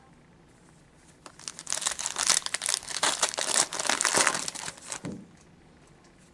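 A trading card pack's wrapper being torn open and crinkled in the hands, a run of crackling starting about a second in and lasting about four seconds.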